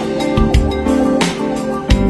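Background music: an instrumental track with plucked notes and a steady beat.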